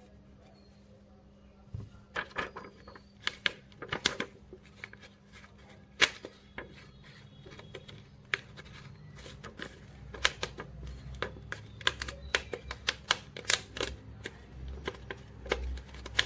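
Irregular sharp clicks and crackles from a flat prying blade and a thin sheet of OCA film being worked under the edge of a phone's shattered screen glass to free the display from its frame. They start about two seconds in.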